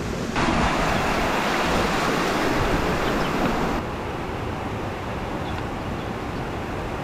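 Creek water cascading over flat rocks, a steady rushing noise. It is louder for the first few seconds, then drops a little and holds steady.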